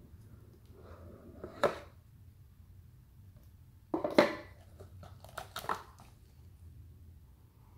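Hands handling a cardboard sunglasses box: a soft rustle ending in a sharp tap about a second and a half in, then a louder scraping knock around four seconds in, followed by a few quick clicks.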